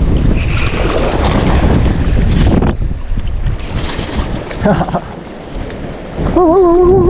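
Wind buffeting the microphone over shore surf, loud for the first two to three seconds and then easing. Near the end a person hums or sings a wavering note.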